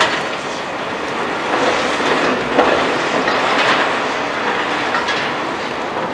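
Demolition excavator breaking up a building: continuous crunching, scraping and clattering of rubble and metal, with louder crashes about one and a half, two and a half and three and a half seconds in.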